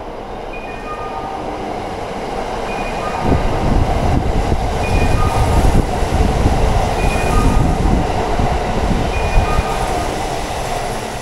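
Kintetsu passing-train warning melody, a short chime phrase repeating about every two seconds on the station platform. A Kintetsu train running through the underground station without stopping is heard over it: its loud rumble and wheel clatter swell about three seconds in.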